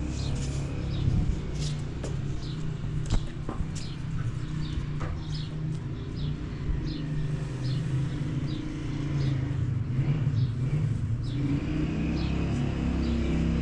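A steady low rumble, with small birds chirping in short, high, repeated chirps throughout.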